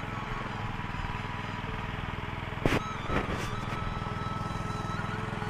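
Small engine of a walk-behind power tiller running steadily under load while it tills the soil. Two sharp knocks come about halfway through.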